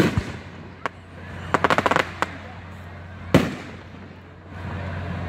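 Aerial fireworks shells bursting overhead: a loud bang at the start, a quick string of crackles about a second and a half in, and another loud bang past the middle. A steadier rush of noise follows near the end.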